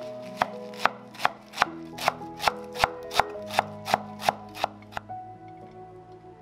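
Kitchen knife chopping food on a cutting board: about a dozen sharp, even strokes, roughly two and a half a second, stopping about five seconds in.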